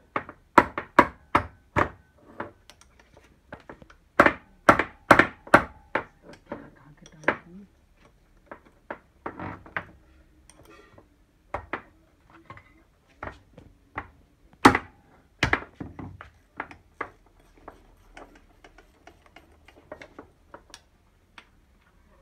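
Sharp metallic knocks on a turbocharger housing from a Hyundai Accent CRDi diesel as it is struck apart on a workbench, some strikes leaving a brief ring. They come in quick runs of four or five, then two hard single knocks, then lighter taps near the end.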